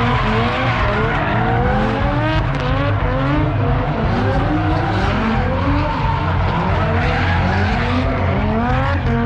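Drift cars revving hard, engine pitch climbing again and again in quick sweeps, over squealing, skidding tyres.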